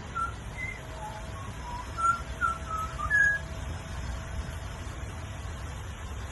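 Butcherbird singing a phrase of about ten short, clear whistled notes at varying pitches over the first three seconds or so, then falling silent. A steady low rumble runs underneath.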